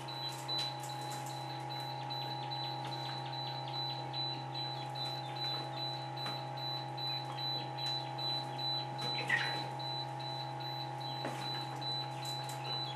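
Powered egg incubator running with a steady hum and a thin high whine, over faint, scattered high cheeps from newly hatched partridge chicks inside it.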